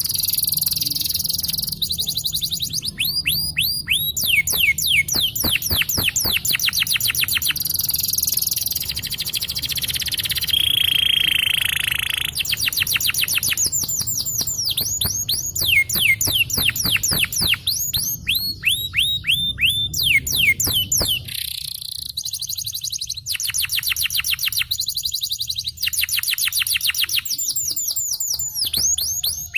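Domestic canary singing a long rolling song: fast trills of rapidly repeated falling notes, switching to a new trill pattern every few seconds. About a third of the way through it holds one steady high note for a moment.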